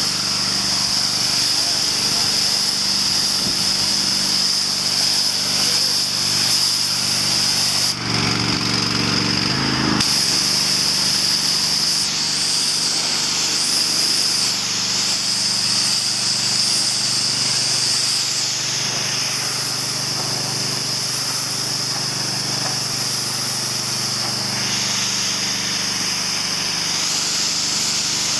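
Pressure washer running steadily: its small petrol engine drones under the hiss of the high-pressure water spray, which shifts in tone a few times.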